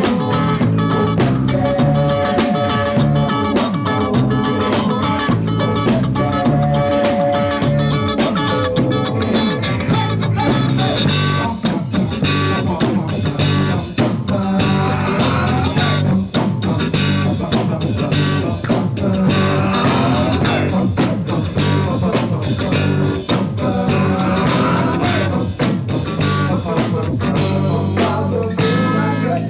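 A rock band playing live, with a repeating bass line, a drum kit keeping a steady beat, guitar and sustained keyboard notes.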